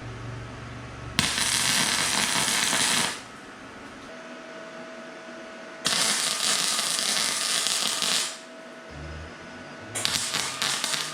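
MIG welder tack welding steel flat bar and square tube: three bursts of arc crackle, each about two seconds long, with quieter gaps between.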